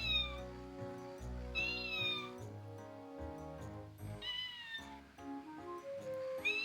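A walking kitten toy playing recorded high kitten meows, four times, each with almost the same rising-then-falling shape, over background music.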